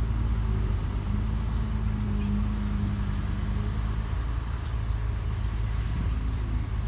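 Diesel engines of excavators and a truck running steadily at work, with strong low-pitched engine sound; one engine note near the middle of the range drops away about four seconds in.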